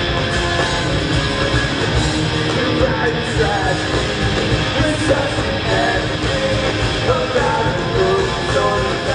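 Live rock band playing: electric guitars and drums, steady and loud throughout.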